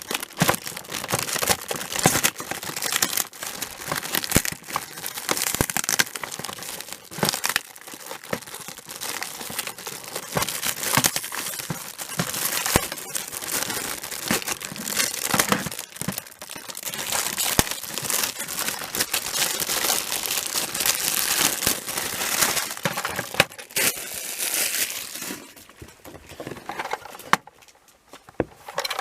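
Packaging rustling and crinkling in the hands as a Plarail toy railroad crossing set is unpacked, with many small irregular clicks and crackles. It quietens near the end.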